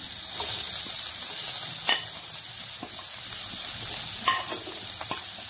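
Chopped onions sizzling as they go into hot butter and fried garlic in a stainless steel kadai, with a steady hiss of frying and a few sharp clicks of the steel spoon scraping them off the plate.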